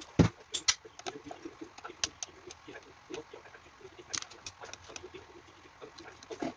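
Irregular light clicks and taps of small hard parts and tools being handled while an electronic control box is taken apart, the loudest knock just after the start.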